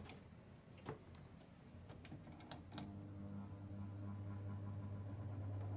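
A few sharp clicks, then about three seconds in the twin tub washing machine's spin-dryer motor starts a steady electric hum that grows slowly louder.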